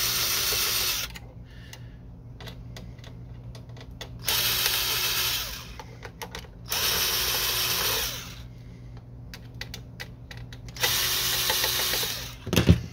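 Cordless drill/driver running in four short spins of about a second each, backing out the screws that hold a printer's main circuit board. Small clicks and handling knocks fall between the spins.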